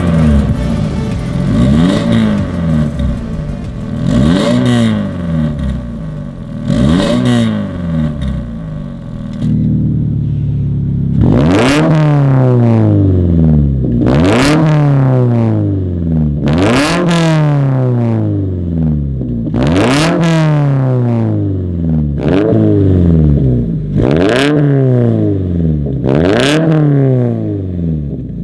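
Second-generation Subaru BRZ's 2.4-litre flat-four, through a Fi Exhaust valved catback with catless downpipes, blipped from idle about every two and a half seconds; each rev rises sharply and falls back to idle. About ten seconds in the exhaust valves open: the idle turns louder and deeper with less hiss, and the revs that follow are fuller.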